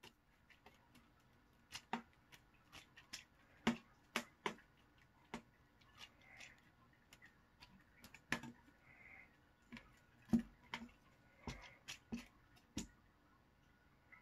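Scattered sharp taps and clicks, irregular and some in quick pairs, from a kitten batting at a feather teaser toy and pawing at a cardboard cat scratcher and box.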